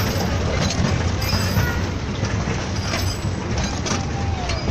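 Miniature ride-on toy train running along its narrow-gauge track, a steady rumble of wheels on rails heard from on board.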